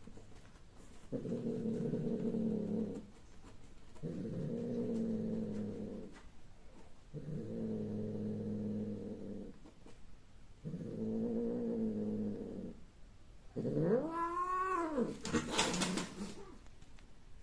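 Cats mating: four long, low yowls of about two seconds each, then a higher yowl that rises and falls, the cry at the end of mating. A short harsh noisy burst follows as the pair breaks apart.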